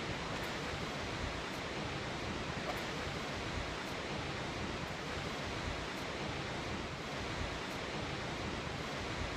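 Skógafoss waterfall rushing steadily: an even, unbroken roar of falling water.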